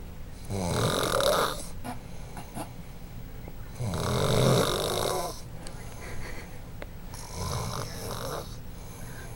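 A person snoring in sleep: three loud snores, each about a second long, roughly three seconds apart, with quieter breathing between them.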